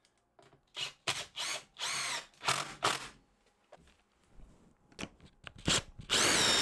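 Cordless drill driving long wood screws through a pine frame into a tabletop, in a string of short bursts with the motor pitch rising and falling.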